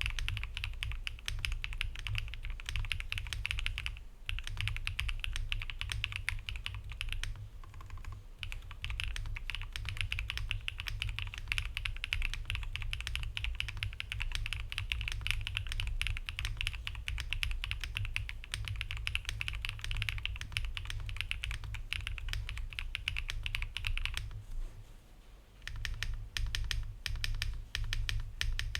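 Fast, continuous typing on a mechanical keyboard, a dense patter of key clicks, with a pause of about a second and a half near the end before the typing resumes.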